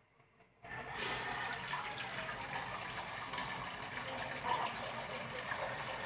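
Water pouring in a steady stream from a plastic tub into a metal cooking pot, starting just under a second in after a brief silence.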